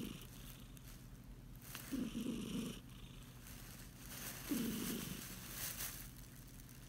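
Domestic cat purring, the purr swelling louder in a burst about every two and a half seconds.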